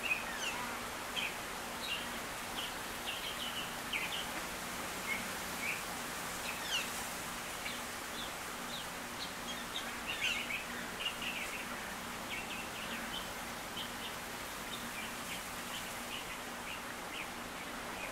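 Ducklings peeping: short high chirps, scattered and at times in little clusters, over a steady background hiss and a faint low hum.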